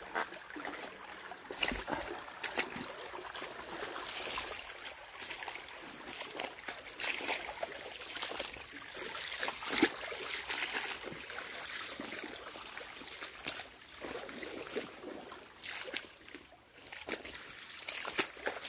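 Shallow monsoon-fed forest stream trickling over a rocky bed, with irregular steps and rustles of someone walking through wet leaf litter at the water's edge.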